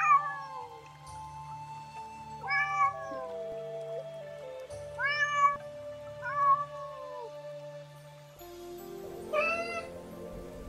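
Domestic cat meowing, about five separate meows a couple of seconds apart, each rising and then falling in pitch, over steady background music.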